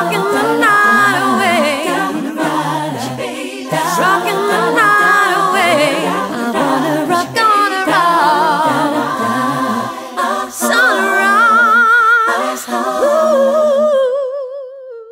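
Layered lead and backing vocal harmonies with heavy vibrato, singing wordless lines. They close on one long held note that fades away near the end.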